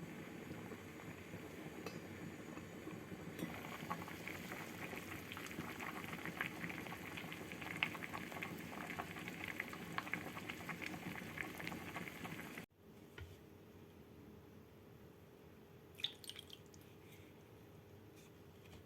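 A pot of soup bubbling at the boil, with many small pops and crackles. About two-thirds of the way through it cuts off abruptly to a much quieter stretch with only a few faint clicks.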